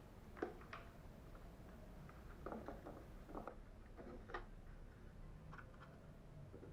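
Faint, scattered clicks and light taps, a sharper click about half a second in and small clusters of taps later, like small parts being handled during assembly.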